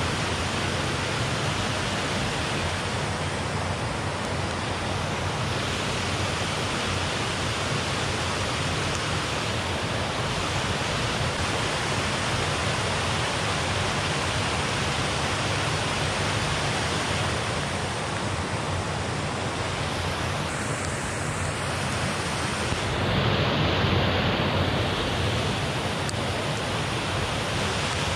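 Water rushing steadily over a low concrete weir in a muddy stream running high after days of rain. It swells a little for a couple of seconds about three-quarters of the way through.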